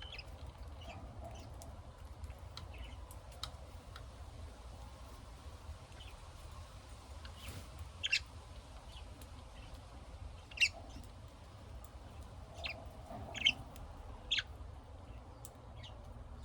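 Pet lovebirds giving short, sharp chirps at irregular intervals, with several louder calls in the second half, over a low steady hum.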